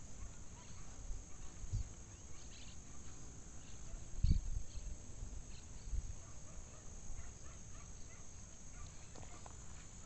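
Faint rural outdoor ambience with scattered short, high chirps and a few low thumps.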